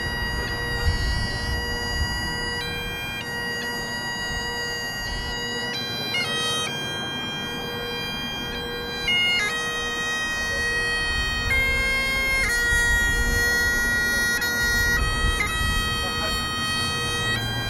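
Bagpipes playing a tune: steady drones hold one pitch underneath while the chanter melody steps between held notes with quick grace-note flicks at the changes.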